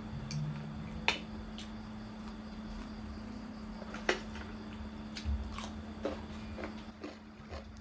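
Eating sounds: a handful of scattered sharp clicks and wet smacks of chewing and biting, irregularly spaced, over a steady low hum.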